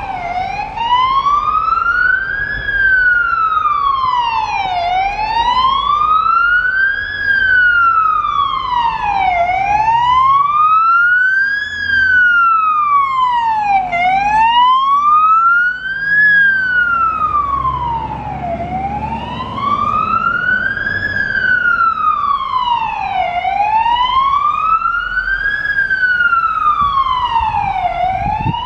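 Scania GCBA 5/32 fire engine's siren wailing, its pitch rising and falling slowly, about one cycle every four and a half seconds, with the truck's engine running underneath.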